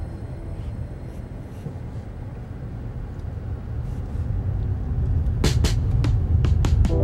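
Low, steady rumble of a car driving, heard from inside the cabin, growing louder in the second half. Near the end a run of sharp ticks begins.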